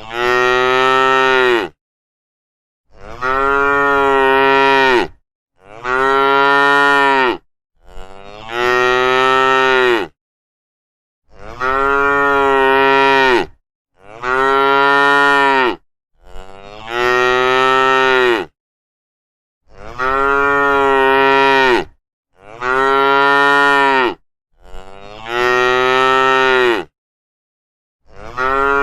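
Cattle mooing: a run of long, steady-pitched moos, each about two seconds, one every two to three seconds with silence in between.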